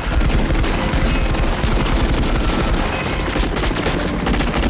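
Machine gun firing from a helicopter in rapid, continuous volleys, with a low rumble underneath.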